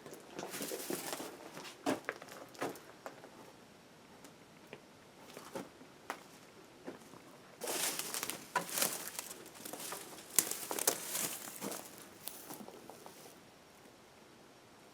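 Irregular footsteps and rustling with scattered sharp clicks, busiest a little past the middle.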